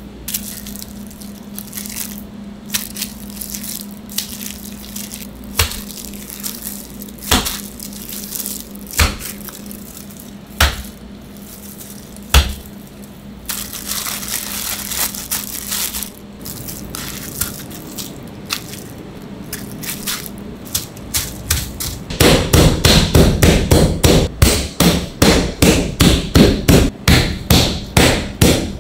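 Scattered knocks and a crinkle of plastic wrap as thin pork slices are handled, then, about three-quarters of the way through, a flat metal meat pounder starts striking pork cutlets through plastic wrap on a cutting board, loud rapid thuds about two or three a second.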